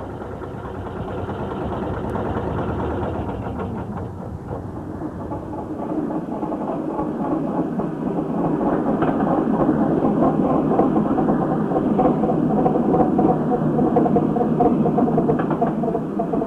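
A tram running on its rails, a steady rattling clatter with a faint motor hum, growing louder through the first half.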